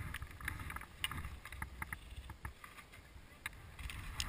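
Skis sliding and scraping over packed snow, with scattered small clicks and a low wind rumble on the camera microphone.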